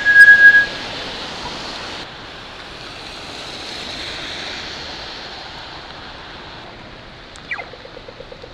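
Wind rushing over the microphone of an e-bike riding in the rain, a steady noisy hiss, with a loud, steady high-pitched squeal in the first second and, near the end, a falling tone that turns into a fast pulsing tone.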